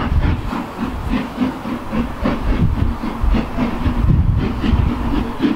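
Steam locomotive working a train, its exhaust beats coming several a second in a steady rhythm over a rumble and hiss of steam.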